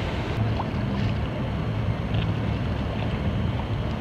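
Boat engine running with a steady low drone, under wind buffeting the microphone.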